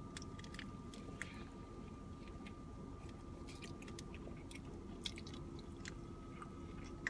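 A person chewing a mouthful of pulled-pork barbecue sandwich with pickles, faint, with small scattered wet mouth clicks.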